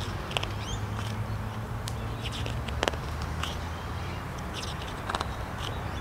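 Pages of a large book being turned by hand: short scattered rustles and clicks, one sharper about three seconds in, over a steady low hum.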